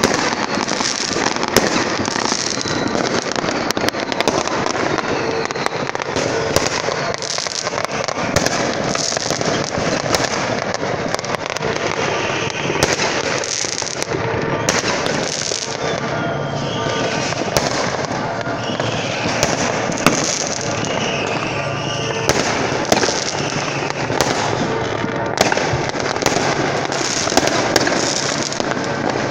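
Many fireworks and firecrackers going off at once: a dense, continuous crackle with sharp bangs scattered throughout, one on top of another.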